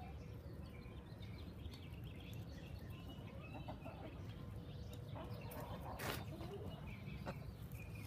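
Chickens clucking in short, scattered calls over a steady low rumble, with a sharp click about six seconds in and a smaller one a second later.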